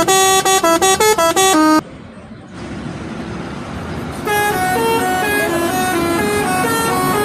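Indonesian bus telolet horns playing melodies. A multi-tone horn plays a fast run of short notes that cuts off suddenly about two seconds in. After a couple of seconds of traffic noise, another horn starts a slower tune of longer stepped notes.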